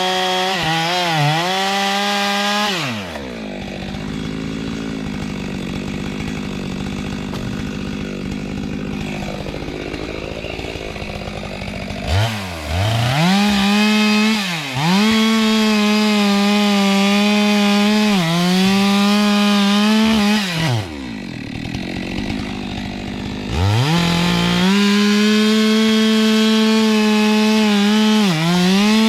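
Two-stroke Stihl chainsaw cutting kapok wood. It runs at full throttle with brief dips in pitch as the chain bogs in the cut, and twice drops back to a low idle for several seconds before revving up again.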